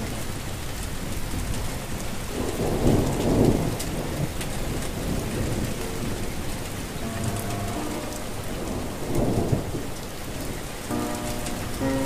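Steady rain falling, with two swells of thunder rumbling through it, about three seconds in and again about nine seconds in.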